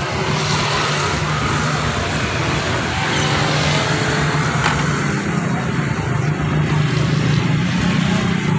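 Steady road traffic noise: a low, even engine hum with a hiss over it, as from vehicles on a rain-wet street.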